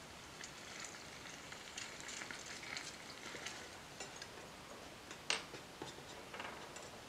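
Faint sizzling of food frying in a miniature stainless-steel pan, with a metal spoon stirring and scraping in it and small scattered clicks. One sharper click comes about five seconds in.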